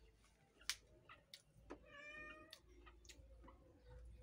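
A domestic cat meows once, a short wavering call about halfway through. A few faint sharp clicks sound around it, the loudest near the start.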